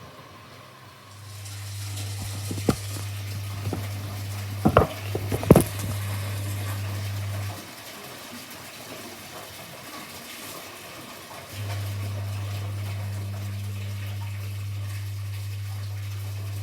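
Washing machine taking in water: a steady low hum with a rushing hiss, which stops about halfway through and starts again a few seconds later. A few sharp knocks come in the first half.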